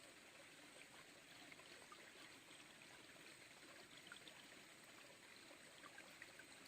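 Faint, steady trickle and flow of a small stream.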